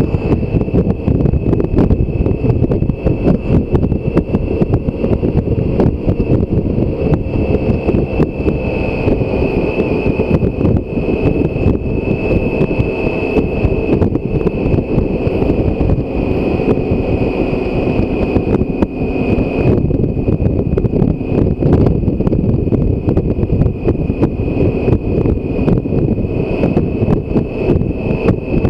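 Motorcycle at steady cruising speed: wind rushing and buffeting on the microphone over the running engine of a 2016 BMW K1600 GTL, an inline-six, with a thin steady high whine above the rush.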